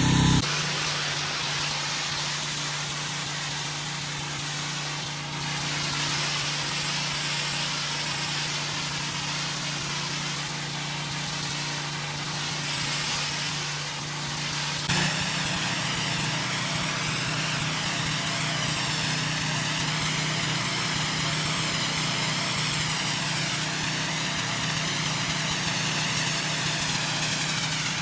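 Gas pressure washer engine running steadily, with the hiss of its water spray rinsing loose dirt off concrete. There is a brief knock about fifteen seconds in, after which the engine tone shifts slightly.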